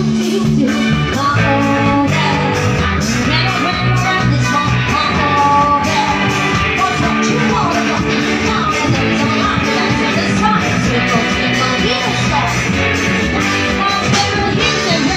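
Live band playing a disco medley: a drum kit keeps a steady beat under electric guitars and keyboard, with a singer on vocals.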